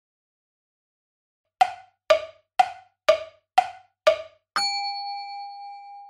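Edited-in percussive sound effect: six short, evenly spaced knocks about half a second apart, then a single bell-like ding that rings on and slowly fades.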